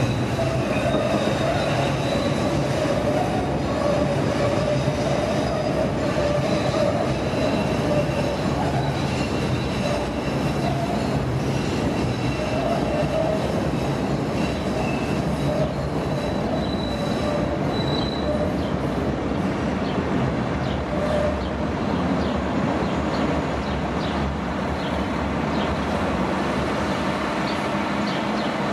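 CTA 'L' rapid-transit train running on the track with steady rumbling wheel noise and squealing wheels: several high squeal tones come and go over the rumble. The noise drops away right at the end.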